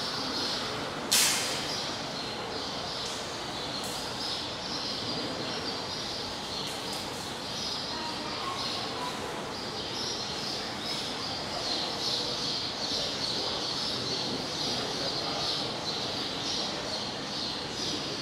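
Outdoor zoo ambience: a steady wash of background noise with chirping birds throughout, and one sharp knock about a second in.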